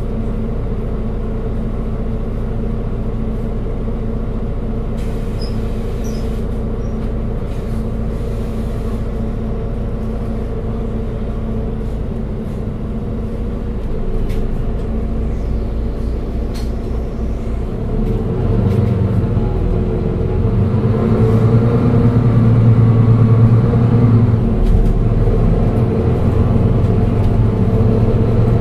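Mercedes-Benz Citaro 2G Euro 6 city bus engine running steadily at idle, then growing louder and deeper about two-thirds of the way in, its pitch rising and falling.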